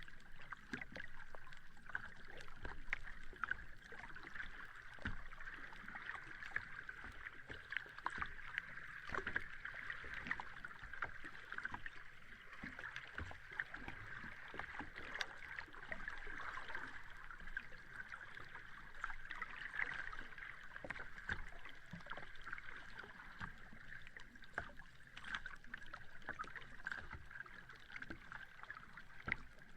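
Sea water washing over a beach in a steady hiss, with many small crackles and fizzes of foam and water.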